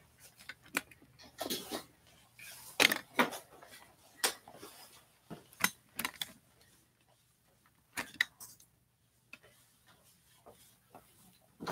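Irregular clicks, knocks and light clatter of objects being handled and set down, some ringing briefly, with short quiet gaps between them.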